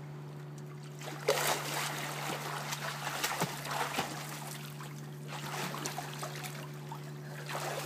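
Water splashing as a child swims through a small backyard pool: a sharp splash about a second in, then irregular splashing and churning. A steady low hum runs underneath.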